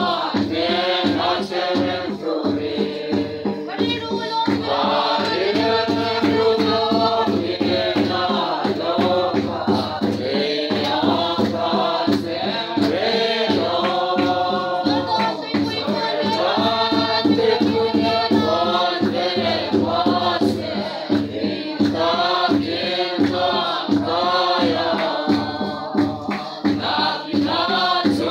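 A group of voices singing a Mizo hymn together, accompanied by a large barrel drum (khuang) beaten in a steady rhythm of about two beats a second.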